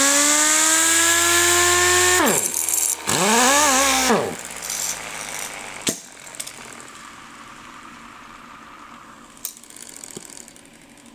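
Sioux (Snap-on) 897HP 6-inch air palm sander running free: the pneumatic motor spins up with an air hiss and a rising whine, then the whine falls away as the air is released about two seconds in. A second short burst follows with a wavering pitch and winds down again, leaving a faint hiss with a couple of light clicks.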